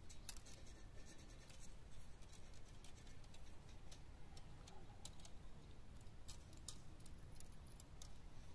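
Faint scattered small clicks and scratches over a low rumble, more of them in the second half.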